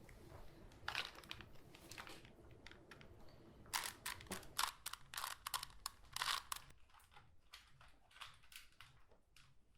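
Rubik's Cube being twisted by hand: a few scattered plastic clicks, then a quick run of clicks and clacks from about four seconds in as its layers are turned rapidly.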